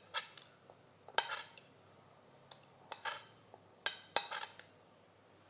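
A spoon clinking and tapping against a bowl while whole spices are put in: a run of about a dozen sharp, ringing clinks, some close together, stopping about four and a half seconds in.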